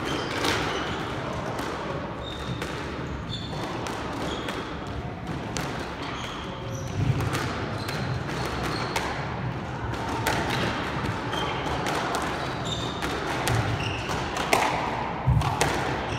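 A squash rally: a squash ball being struck by rackets and thudding off the court walls in sharp knocks, with sports shoes squeaking on the wooden court floor.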